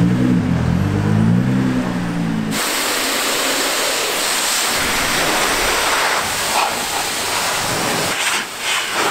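A car engine running, its pitch rising and falling. About two and a half seconds in it cuts abruptly to a loud, steady hiss from car-washing equipment working over the bodywork.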